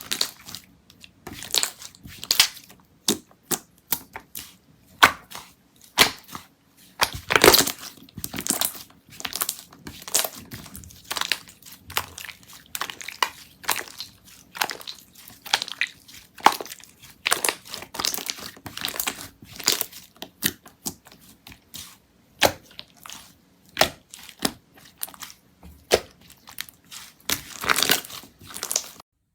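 Slime being squeezed and poked by hand: irregular crackling, popping clicks, loudest about seven seconds in.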